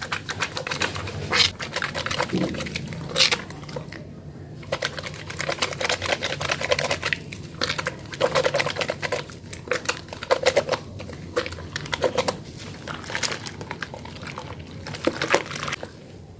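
A wet mini bar of Holly soap being lathered in the hands: sticky squelching and crackling of foam, in runs of a second or two with short pauses.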